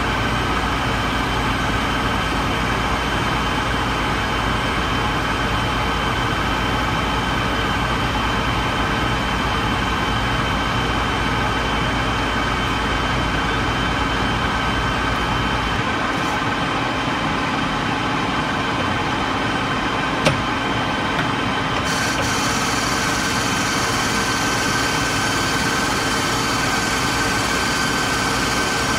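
Metal lathe running while a carbide insert tool turns a metal bar: a steady machine whine with cutting noise. The sound changes abruptly twice, about 16 and 22 seconds in, and there is a single sharp click about 20 seconds in.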